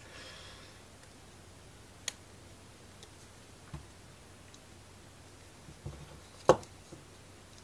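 Sparse clicks and taps of small wooden model-kit parts being handled and pressed into place, with one sharp, much louder click near the end.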